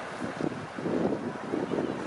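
Wind buffeting the microphone in uneven gusts over the wash of small waves on the shore.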